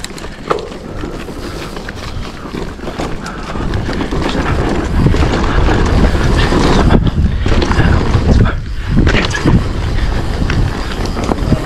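Wind buffeting the action-camera microphone while a mountain bike rides a dirt trail, with tyre rumble and scattered knocks and rattles from the bike over bumps. It gets louder from about four seconds in as the bike picks up speed.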